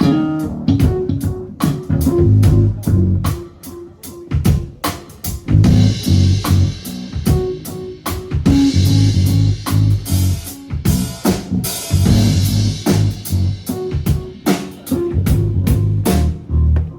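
Bass guitar and drum kit playing together: a busy bass line over steady drum hits, with cymbals washing in through the middle.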